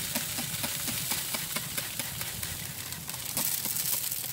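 Hand spray bottle misting apple juice over ribs in a smoker: quick repeated trigger squeezes, about four a second, over a steady hiss of spray.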